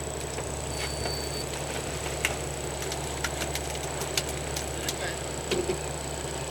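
Fishing boat's engine running steadily as a low hum, with scattered sharp clicks and taps and a brief high tone about a second in.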